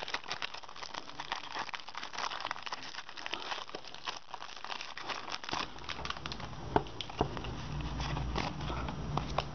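Foil wrapper of a Pokémon trading card booster pack crinkling and crackling as it is torn open and the stack of cards is pulled out. A low hum joins a little past halfway.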